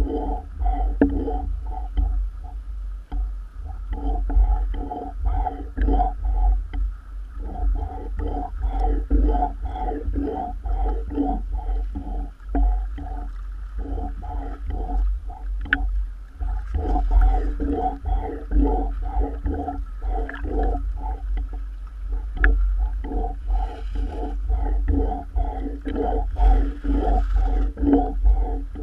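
Choppy waves slapping and sloshing against a camera at the water's surface, with a steady low rumble and rapid, hollow pulses of fixed pitch, several a second, broken by short pauses.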